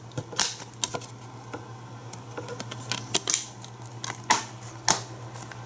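Plastic DVD keep case being handled: a few sharp clicks and rattles spread through, as the case is snapped shut and turned over, over a steady low hum.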